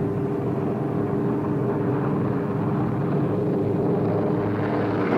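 Four radial piston engines of a B-17 Flying Fortress droning steadily in flight, a continuous hum with several steady tones.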